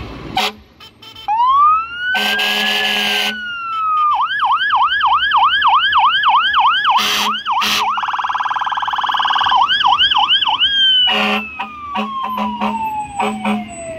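Emergency vehicle siren cycling through its tones: a wail rises and falls, then a fast yelp of about three cycles a second, a rapid warble, another short yelp and a long falling wail. Short horn blasts sound over it about two seconds in, twice around seven seconds, and several more near the end.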